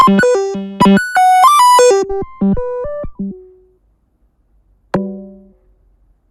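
Eurorack-style software modular synthesizer playing a fast run of short, pitched notes that thins out and fades about three seconds in. After a pause, a single note is struck and decays quickly.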